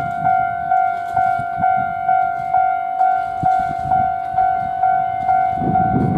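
Japanese railway level-crossing warning bell ringing steadily, about two strikes a second, as a train approaches. A low rumble rises under it near the end.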